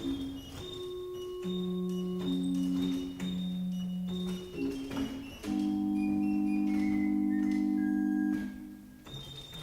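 Pipe organ playing a slow line of long held notes over sustained lower notes, settling into a long held chord about five and a half seconds in that is released near the end, after which quicker notes begin.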